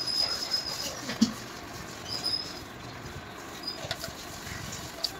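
Plastic parts being pushed and twisted together by hand: two short, high squeaks, one at the start and one about two seconds in, with a few light clicks.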